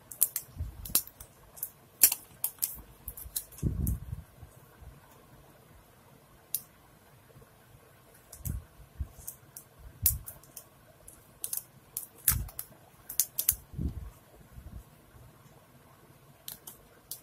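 Protective plastic film being peeled by hand off a new smartphone: scattered crinkles and fingernail clicks on the plastic, with a few soft thumps as the phone is handled.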